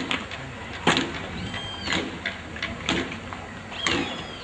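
Handling noises: a few sharp knocks about a second apart with rustling between them, and a short high chirp twice.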